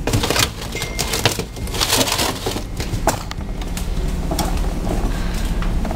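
Crinkling and crackling of packaging and containers being handled and moved about in a fridge freezer, with irregular sharp clicks and knocks.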